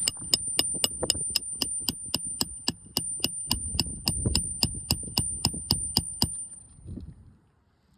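Hammer driving a roofing nail through an asphalt shingle: a steady run of sharp strikes, about three a second, with a thin high ring, stopping about six seconds in.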